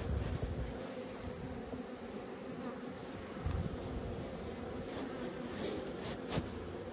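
A mass of honeybees from a freshly installed package buzzing steadily in a wooden top-bar hive, with a few short wooden knocks as the top bars are pressed into place, the loudest about three and a half seconds in and again near the end.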